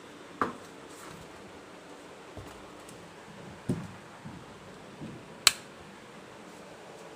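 Handling noise: a few short knocks and clicks over a faint steady hiss, the loudest a sharp click about five and a half seconds in.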